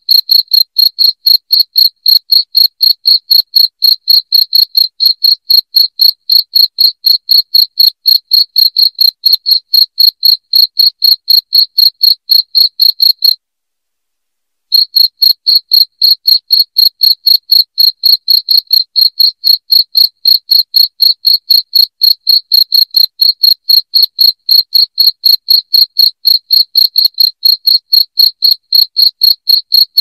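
Cricket chirping loudly: a fast, even train of high-pitched chirps, about three a second, that breaks off for about a second midway and then resumes.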